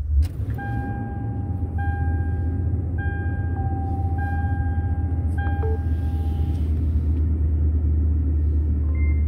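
Toyota Tundra pickup idling inside the cab, a steady low rumble. Over it an electronic chime sounds five times, each tone about a second long, in the first six and a half seconds. Near the end a short beep marks the phone starting to charge on the wireless charging pad.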